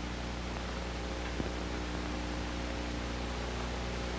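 Steady hiss and low hum of an old television soundtrack, with one faint click about a third of the way through.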